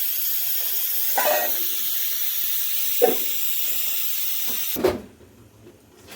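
Steady, loud hiss from food cooking in a pot. It is broken by two short knocks, about one and three seconds in, and cuts off abruptly near the end.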